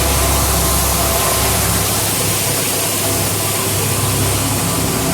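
Grain auger and the tractor powering it running steadily while corn is unloaded into a bin, a loud, even mechanical noise with a hissing wash over a running engine. The deepest rumble eases about two seconds in.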